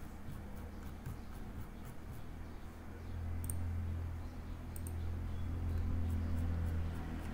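A few sharp computer mouse clicks over a low, steady hum that grows louder about three seconds in.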